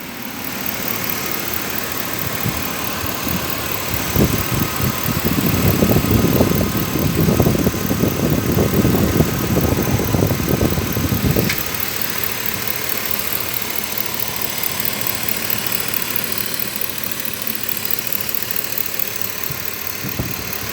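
2004 GMC Yukon's V8 engine idling steadily. A louder stretch of irregular low noise runs from about four to eleven seconds in.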